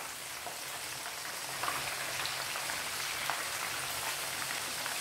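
Marinated chicken pieces frying in hot oil in a pan: a steady sizzle with small crackling pops.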